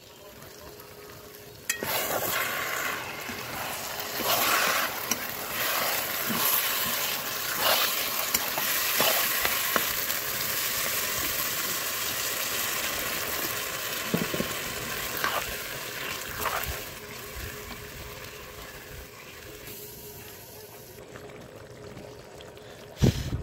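Curry of beans, taro leaves and pumpkin sizzling in a hot pan while a metal spoon stirs and scrapes through it. Water is poured in about halfway, and the sizzle eases off over the last few seconds. A sharp knock comes near the end.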